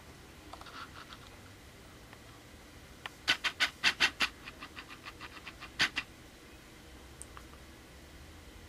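Canon EF-S 18-55mm IS kit lens autofocus motor ticking and clicking in a quick rapid run as the lens drives to focus. The clicks come about three seconds in, fade to faint ticks, and end with a louder double click near six seconds.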